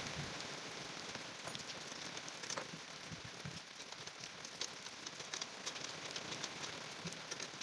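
Rain falling and pattering on a surface, a steady hiss with many small scattered drop ticks.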